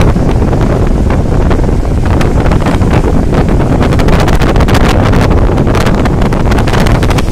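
Strong wind buffeting the microphone: a loud, continuous low rumble with frequent crackles, thickest in the second half.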